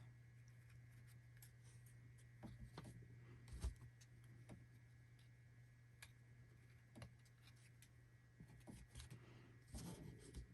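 Near silence with faint, scattered clicks and taps of trading cards being handled and sorted, over a steady low hum.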